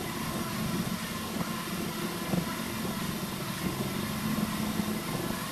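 Milling machine spindle running steadily while a twist drill bores a through hole in a metal block.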